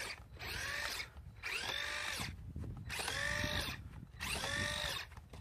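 Traxxas Maxx 4S RC truck's brushless electric motor and drivetrain whining in repeated throttle bursts, about one a second. Each burst rises and then falls in pitch.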